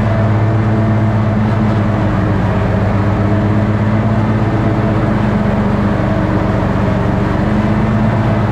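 Toro riding mower's engine running steadily under load while mowing grass, an even, unchanging drone.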